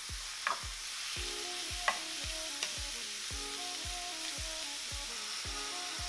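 Ground beef sizzling in butter in a hot cast-iron skillet as a wooden spatula breaks it up and stirs it, with a few sharp clicks of the spatula against the pan. Background music with a steady beat plays underneath.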